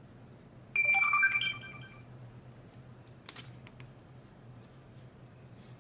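Phone notification chime: a short run of several high electronic notes lasting under a second, followed about two seconds later by a single brief tap.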